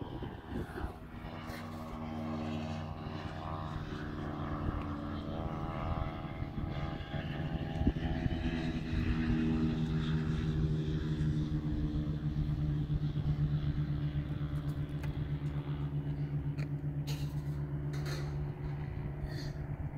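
A motor engine running steadily with an even hum whose pitch drifts slightly. A few sharp clicks near the end.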